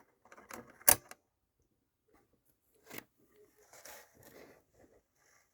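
Small parts handled on a workbench: a sharp click about a second in, then scattered soft taps and rustling.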